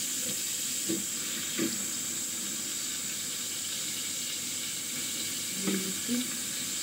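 Pointed gourd pieces and freshly added tomato frying in hot oil in a metal pan: a steady sizzle, with a few light knocks of the spatula as they are stirred.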